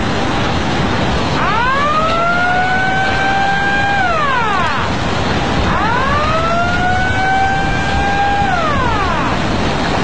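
Outdoor tsunami warning siren wailing through two cycles, each rising, holding steady for about two and a half seconds, then falling away, over a loud steady rush of noise.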